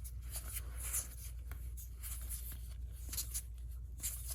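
Trading cards being handled and slid against one another: a few brief soft swishes, about a second in and again near the end, over a steady low hum.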